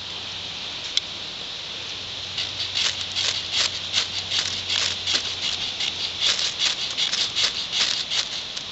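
Fire steel (ferrocerium rod) scraped with a steel striker: one sharp scrape about a second in, then a run of quick rasping strokes, about three a second, from a little after two seconds. The strikes are repeated to get shelf-mushroom tinder to hold a spark; the striker put the extra strikes down to a bad angle with the fire steel.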